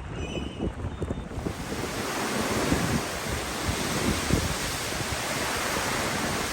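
Strong wind blowing and buffeting the microphone with low rumbles. About a second and a half in, a broad rushing hiss swells up and then holds steady.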